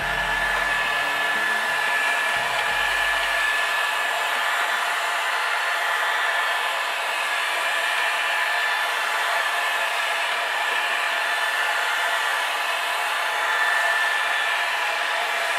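Electric heat gun blowing hot air onto an engine casing: a steady rushing of air with a thin, constant high whine from its fan.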